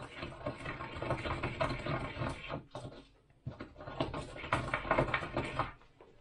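Pestle grinding whole spices (peppercorns, allspice, bay leaf) in a small ceramic mortar: quick scraping and rattling strokes, in two bouts with a short pause about three seconds in.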